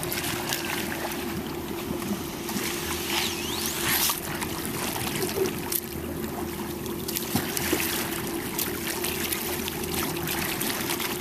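Sea water splashing and trickling around a Spray underwater glider as it slides off a boat's deployment ramp into the sea and floats alongside, with scattered sharp clicks over a steady low hum.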